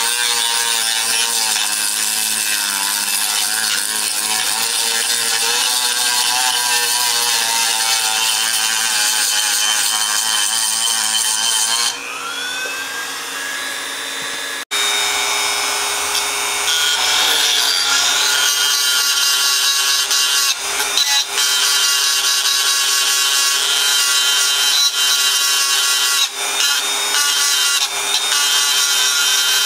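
Handheld rotary tool with a small grinding bit running at high speed, grinding metal and epoxy filler on engine parts; its whine wavers as it bites. About twelve seconds in the sound drops, and after a short break near fifteen seconds the grinding starts again.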